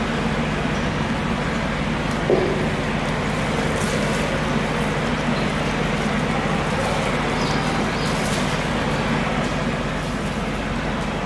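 Steady mechanical hum and rumble, with one sharp knock about two seconds in.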